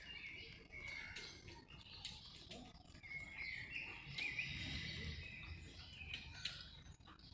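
Birds chirping outdoors in short wavering calls, a cluster near the start and a longer run about three to four seconds in, over a steady low background rumble with a few faint taps.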